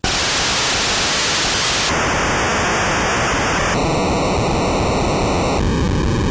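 Loud, steady hiss of white-noise static, its tone shifting abruptly in steps about every two seconds.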